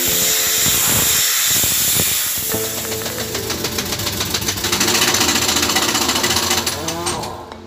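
A steady loud hiss under background music, with a fast, even ticking rhythm from about three seconds in until near the end.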